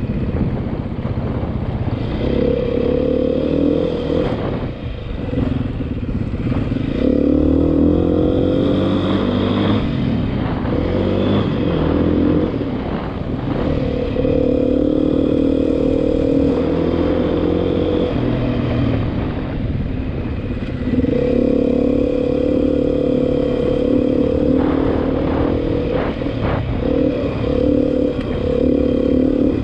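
Beta 500 RR-S dual-sport motorcycle's single-cylinder four-stroke engine running under way, its note holding steady for several seconds at a time, then dropping away and picking up again at a new pitch a few times as the rider eases off and shifts.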